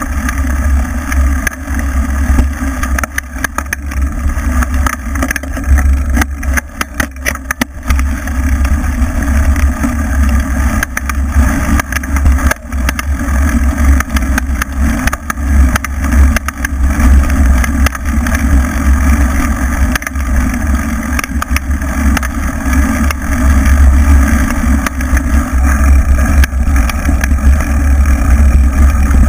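Wind buffeting and rattling picked up by an action camera mounted on a mountain bike riding a bumpy grassy dirt track, with a run of sharp knocks from jolts about six to eight seconds in.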